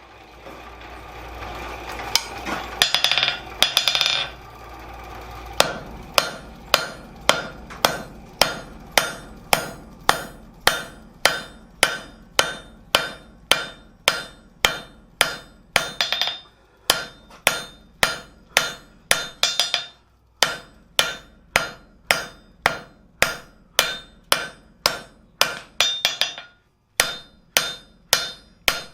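Hand hammer striking hot steel on an anvil, drawing out a tong half: steady ringing blows at about two a second, with a few short pauses as the piece is turned. The first few seconds hold metallic clanking over a steady rushing noise before the hammering starts.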